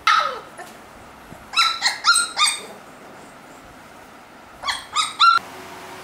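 Saint Bernard puppies yipping while they play-fight. A short falling yelp comes at the start, then two quick runs of three high-pitched yips, one about a second and a half in and the other near the end.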